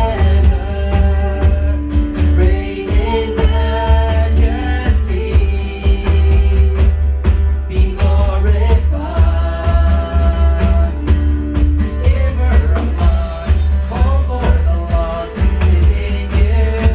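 Worship song playing: singing over a band with a heavy bass and a steady drum beat.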